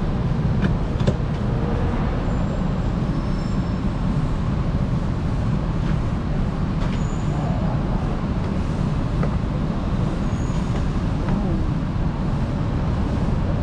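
Busy market background noise: a steady low rumble with a few faint, short metal clicks.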